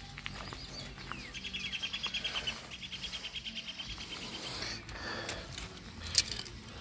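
A bird calling in two runs of quick, high, evenly spaced notes, about nine a second. A single sharp click comes near the end.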